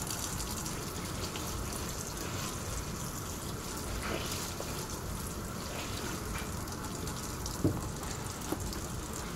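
Kitchen faucet running steadily into a stainless steel sink while a sponge is rinsed under the stream and wiped along the sink. Near the end come a couple of small knocks.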